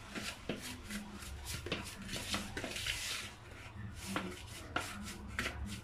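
Spoon stirring a spice paste in a plastic bowl, scraping and rubbing with irregular small knocks against the bowl.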